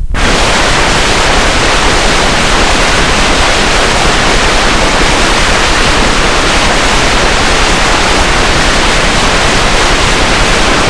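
Loud, steady hissing static, like white noise, that cuts in suddenly at the start and holds at one level throughout.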